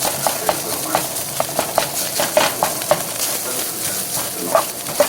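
Food sizzling in a frying pan while a utensil stirs it, knocking and scraping against the pan about three times a second over a steady hiss.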